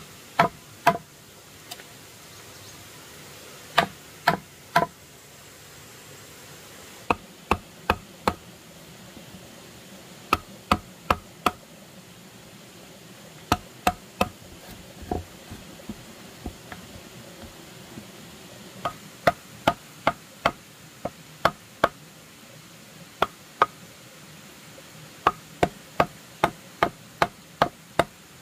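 Sharp knocks of a tool striking wood, in runs of three to eight blows at about two or three a second with short pauses between runs.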